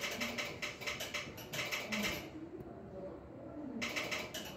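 Telegraph sounder clicking out Morse code in quick, uneven clicks, pausing for about a second and a half midway.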